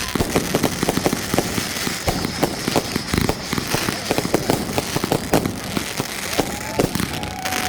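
Fireworks going off in rapid, irregular succession: a dense string of sharp bangs and crackling pops, with a whistling tone near the end.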